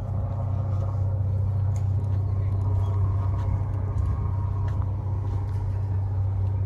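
A steady low rumble with a faint hazy background above it, constant throughout.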